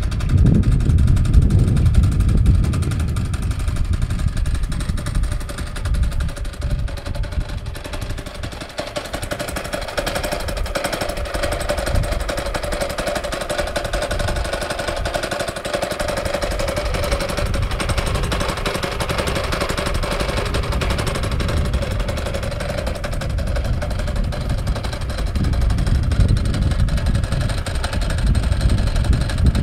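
Honda GX160 single-cylinder four-stroke engine on a walk-behind power trowel, running steadily at idle with a rapid putter.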